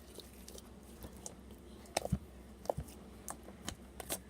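Homemade slime being poked and squished by fingers: scattered small sticky pops and clicks, several bunched together about halfway through.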